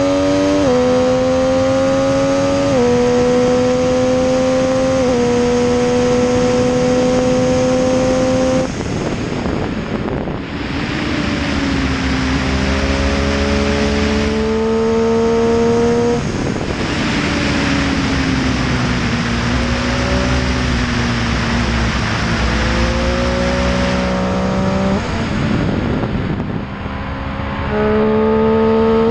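Triumph Street Triple R's three-cylinder engine under way, pulling hard and stepping down in pitch with each quick upshift early on. Through the middle, heavy wind rush on the helmet-mounted microphone covers the engine as the throttle is eased and reopened. Near the end the engine rises strongly again under acceleration.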